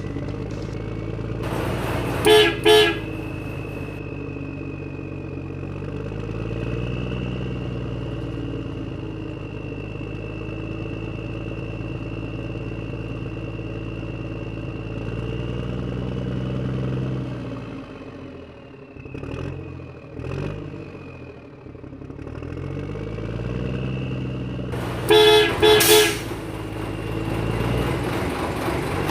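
Truck engine running, its pitch rising and falling as it revs, with a double horn toot about two seconds in and another near the end. The horn blasts are the loudest sounds.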